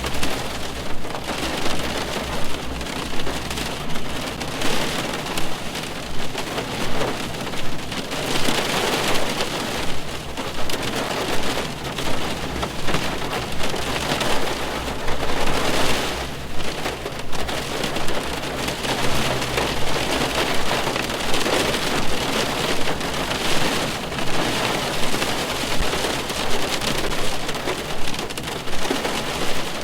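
Rain falling on a car's roof and windows, heard from inside the car: a dense, steady patter of drops.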